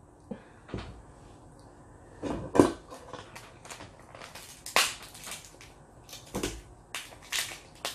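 Snow crab legs cracked and snapped apart by hand, shell breaking in a series of sharp, irregular cracks, the loudest about two and a half and five seconds in.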